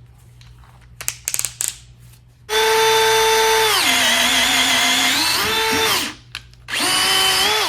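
DeWalt DCD777 cordless drill in drill mode at speed 2, boring a 5/8-inch Irwin Speed Bore spade bit through a 2x4: the motor whine drops in pitch as the bit loads up in the wood, rises again as it cuts through, and stops, running faster and smoother than an impact driver. A few clicks come before it, and a second short run of the drill near the end.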